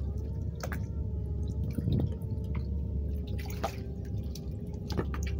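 Water dripping and lightly splashing at the surface: scattered short drips, with one broader splash about three and a half seconds in. Under it runs a steady low hum and a faint wavering tone.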